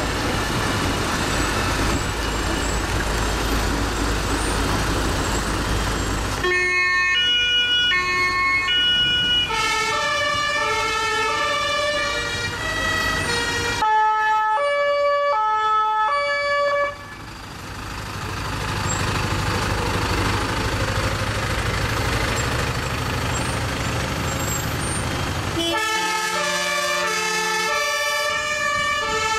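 Fire engines driving past, several German two-tone sirens (Martinshorn) alternating between a high and a low note over the noise of the trucks' diesel engines. At first only the engines are heard. The sirens start about six seconds in, stop for several seconds in the middle, and start again near the end.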